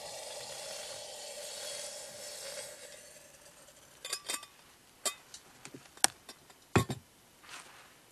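A steady hiss that fades out about three seconds in, then a string of sharp, irregular clinks and taps from metal camping cookware being handled, the loudest near the end.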